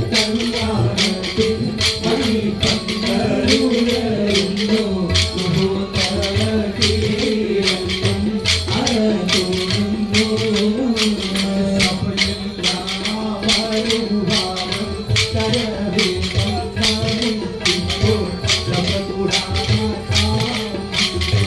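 Kolkali stick dance: wooden sticks struck together in a steady rhythm of sharp clacks, about two to three a second, under a group singing a Mappila song in unison.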